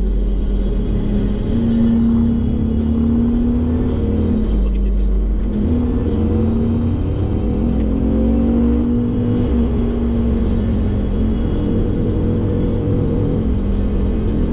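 GM Vortec 8100 8.1-liter V8 in a 1980 Chevy C30 rollback running steadily with a heavy low rumble as the truck drives, with background music over it.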